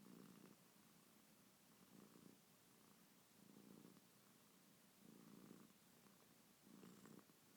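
Domestic cat snoring faintly, in even breaths: a short snore about every one and a half seconds, five in all.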